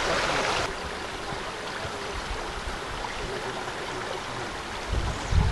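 Steady rushing of a mountain stream, dropping a little in level just under a second in, with a short low rumble near the end.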